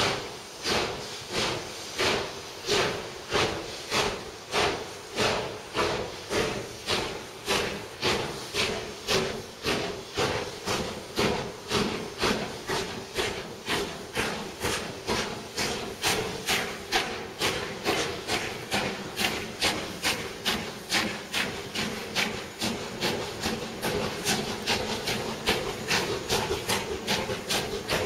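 Steam locomotive pulling away with its exhaust beats chuffing sharply and evenly. The beats quicken from about one and a half a second to nearly three a second as the train gathers speed.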